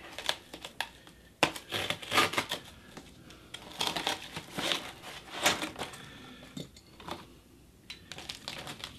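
Packaging on a new e-bike being handled and pulled off by hand: irregular crinkling and rustling, with a short lull about seven seconds in.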